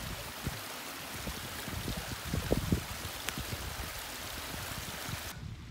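Heavy rain falling in a steady hiss, with wind buffeting the microphone in irregular low rumbles.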